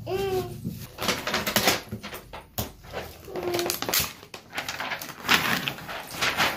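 Paper label sleeve being torn and pulled off a plastic toy capsule: irregular crackly tearing and rustling, on and off for several seconds.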